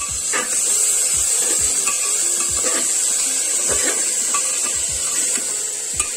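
Metal spatula stirring and scraping chicken and vegetables around the bottom of a pressure cooker, about two strokes a second, over a steady sizzle of frying.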